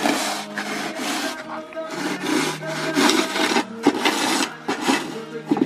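A wide snow-pusher shovel scraping snow off pavement in repeated strokes, roughly one a second.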